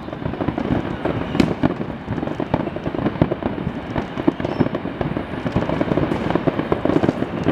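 Fireworks display: a dense, continuous crackling of many shells bursting at once, with one sharper bang about a second and a half in.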